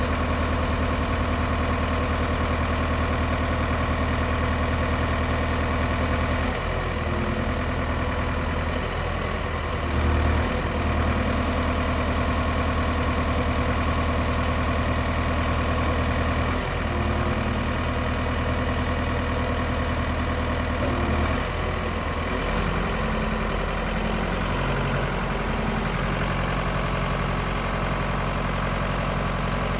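Combilift C14000 diesel forklift engine running at idle, a steady low engine note that shifts a few times, about 7, 10, 17 and 22 seconds in, as the load or revs change. A faint high whine runs alongside and dips briefly in pitch twice.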